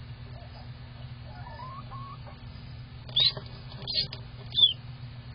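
Hatching duckling peeping: three short, high peeps a little over three seconds in, about half a second apart, the last one dropping in pitch, with fainter calls shortly before. A steady low hum runs underneath.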